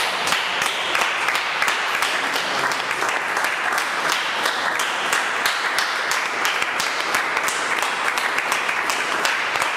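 A congregation applauding: a dense, steady round of many hands clapping.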